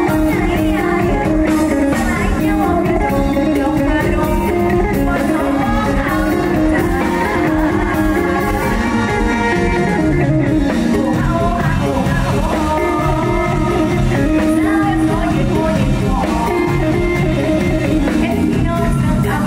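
Live mor lam band music amplified through a PA: electric guitar over a steady beat, with a young girl singing a melody into a microphone. The voice drops out for a short instrumental stretch about midway.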